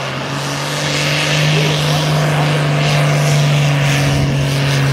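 Vintage Fordson diesel tractor engine running hard at a steady pitch, under full load as it drags a tractor-pulling weight sled.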